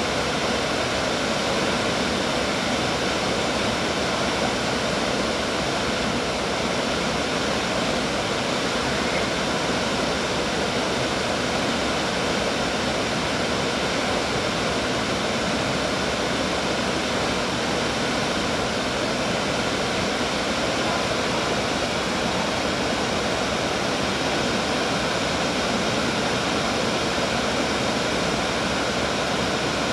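Steady rushing of a waterfall: river water pouring over a low weir and running through the rocky shallows below.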